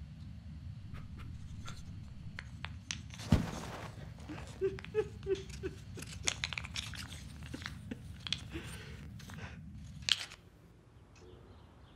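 Paper being handled and torn by hand: a run of crinkles, rips and small clicks, the loudest about three seconds in, over a low steady room hum that drops away about ten seconds in.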